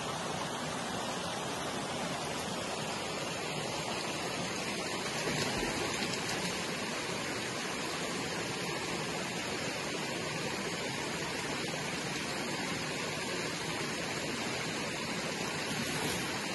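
Shallow, spring-fed stream running over rocks: a steady rush of water.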